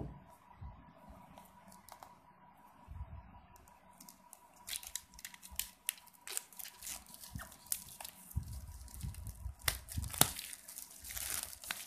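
Plastic shrink-wrap film being torn and peeled off a cardboard phone box, crinkling and crackling. It is sparse at first and busier from about five seconds in, with a couple of sharp snaps around ten seconds in.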